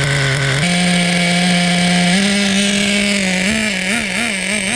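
Traxxas Pro 15 two-stroke nitro engine in a 2001 Nitro Stampede RC truck, running through an MIP Stinger pipe. It idles, its pitch stepping up twice. Near the end it rises and falls in quick throttle blips, about three a second, as it warms up running rich.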